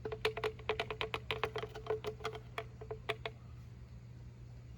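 A ratchet wrench clicking quickly, about twenty clicks in three seconds, as a part is tightened down. The clicking stops about three seconds in.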